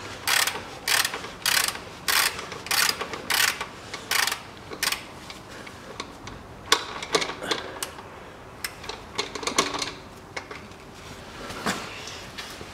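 Ratchet wrench clicking in repeated strokes, about one every 0.6 s, as it unscrews a Lexus CT200h's overtightened oil filter housing cap that has just broken loose. After about five seconds the strokes stop and give way to scattered lighter clicks and rubbing as the housing is handled.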